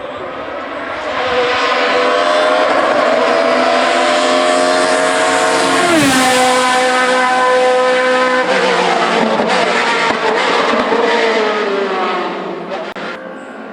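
Hillclimb race car's engine at full throttle, its pitch climbing through the gears with a sharp drop at an upshift about six seconds in and another at about eight and a half, then falling away and fading as the car passes and goes on up the course.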